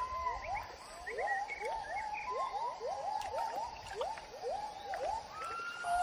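Gibbon calling: a run of short rising whoops, about two or three a second, ending near the end in a longer, higher rising note.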